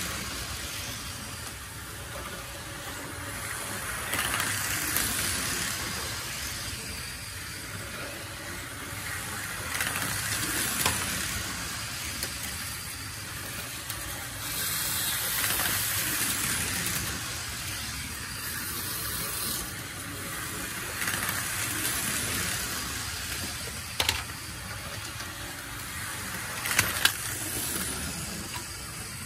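Tyco HO-scale train and slot cars running on plastic track: a steady whirring of small electric motors and wheels that rises and falls every few seconds as they pass close by. A few sharp clicks come near the end.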